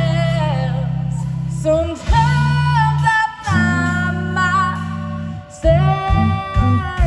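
Live blues band playing a slow blues: a female lead voice sings long held, bending notes in phrases with short breaths between them, over electric guitar, drums and keyboard.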